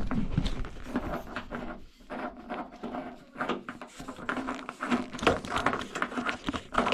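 Metal gas-line pipe and fittings being handled and fitted into place by hand: irregular clinks, knocks and scrapes of metal on metal.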